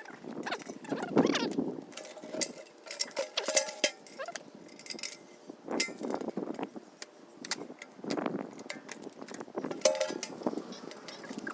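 Irregular metallic clinks, knocks and scrapes of a steel pail can being handled and worked on by hand, with a few brief ringing tones from the sheet metal.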